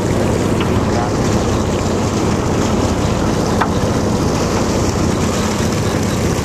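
A boat's engine running steadily with a low hum, under wind on the microphone and the wash of water along the hull.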